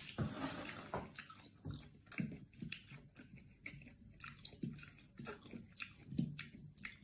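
A person chewing a mouthful of beef steak, a faint run of short, irregular mouth clicks.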